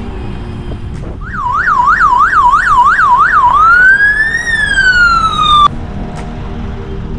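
Electronic emergency-vehicle siren: a fast yelp sweeping up and down about three times a second, then a single slow rising and falling wail that cuts off suddenly. It is the loudest sound, over background music.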